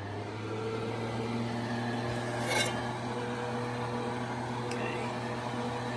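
A steady motor hum, like a small fan motor running, that swells over the first second and then holds. A short sharp tick sounds about two and a half seconds in.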